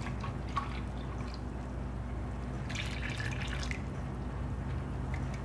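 Milk pouring from a plastic jug into a measuring cup and from the cup into a mixing bowl of cornbread batter, a splashy pour of about a second a little before the middle. A low steady hum runs underneath.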